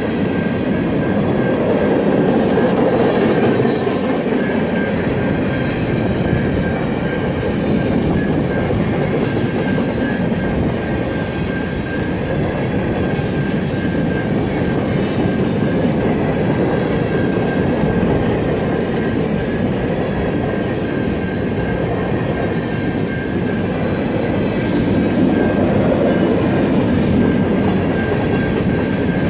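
Loaded freight train passing at speed, a string of empty centerbeam flatcars rumbling and clattering over the rails in a steady stream. A Siemens electronic crossing bell rings on and on above the train noise as a thin, steady high tone.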